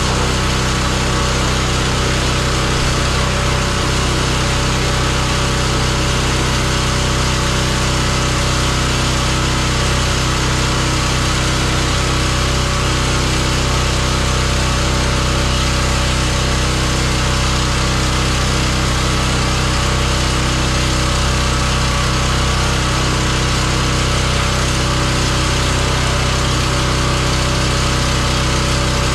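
Petrol pressure washer running steadily under load, its small engine humming beneath the hiss of the high-pressure water spray.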